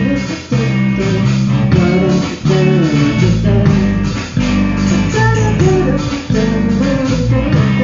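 Live rock band playing at full volume, with electric guitar, bass guitar and drums, in a repeating figure broken by short gaps about every two seconds.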